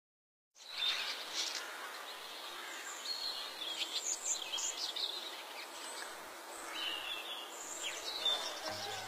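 Rural outdoor ambience that begins about half a second in: birds chirping over a steady hiss of insects. Low, sustained music notes come in near the end.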